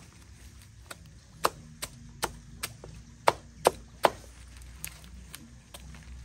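Repeated chopping strokes on wood, about two or three a second, sharp and short, with a few much harder strikes around the middle.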